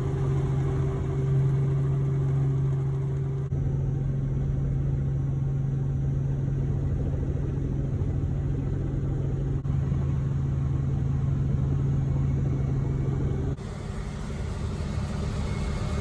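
Helicopter running with a steady low drone. The sound jumps abruptly about 3.5 and 10 seconds in, then drops to a quieter hum near the end.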